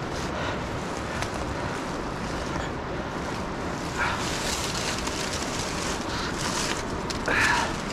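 Steady rushing of the Youghiogheny River's whitewater beside the trail, mixed with some wind on the microphone. Two brief scuffs stand out, about four seconds in and near the end.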